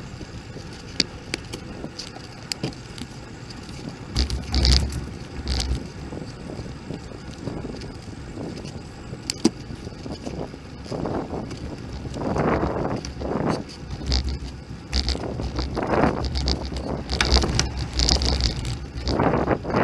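Riding noise picked up by a camera mounted on a moving bicycle: wind buffets the microphone in low gusts, and the bike rattles and clicks over the road. Several swells of noise rise and fall in the second half.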